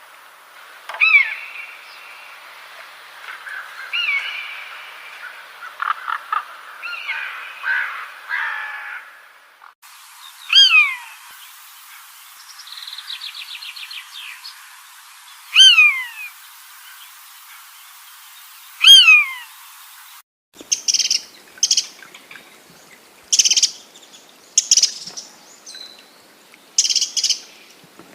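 Bird calls in three abruptly changing sections. First comes a run of short falling whistles and chirps. Then a loud call that slides down in pitch repeats about every three seconds, with a brief rapid trill, and the last section is a quick series of short high chirps.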